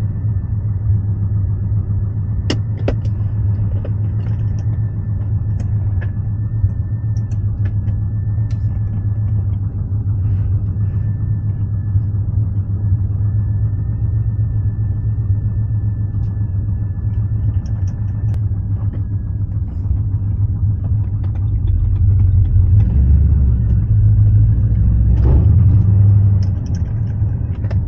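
Aluminium 5.7 L LS1 V8 in a BMW E36, on headers and a custom exhaust, running with a deep steady rumble that swells louder for a few seconds about 22 seconds in. The car has an exhaust leak that the owner is trying to find.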